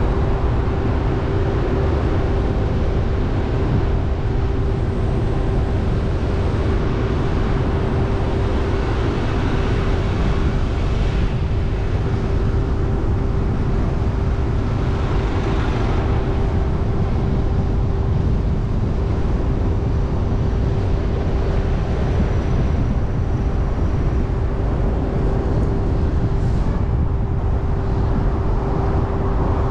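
Car driving on city streets: a steady low rumble of road noise with a constant hum, and brief swells of hiss about a third and halfway through.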